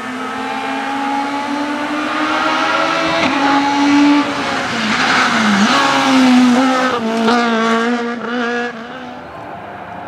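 Rally car engine at full throttle, revs climbing as it approaches, then dropping sharply as the driver brakes for the bend, and accelerating away in quick successive gear changes before fading out.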